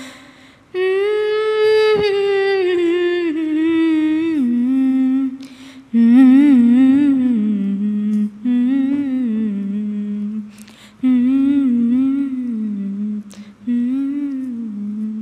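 A woman humming the song's melody without words and without accompaniment, in several long phrases with a wavering pitch.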